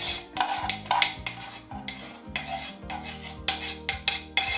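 A utensil scraping thick lemon cream out of a saucepan, with repeated irregular rasping strokes against the pan. Faint background music runs underneath.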